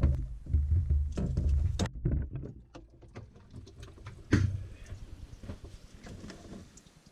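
Scuffing and rustling from hands-on work, with scattered clicks. It is loudest in the first two seconds, then quieter, with one sharp knock about four seconds in before it dies down.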